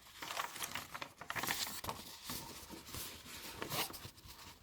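Irregular rustling and crinkling of a diamond painting canvas being handled and moved about.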